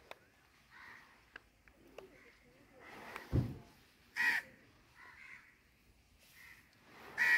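Short, harsh bird calls repeated every second or so, two of them loud (about four seconds in and near the end), with one brief low thump about three seconds in.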